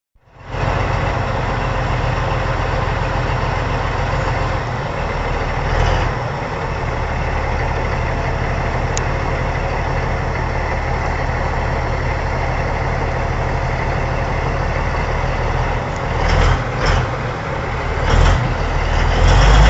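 Heavy diesel machinery engine running steadily with a deep low hum, with a few brief louder surges or knocks near the end.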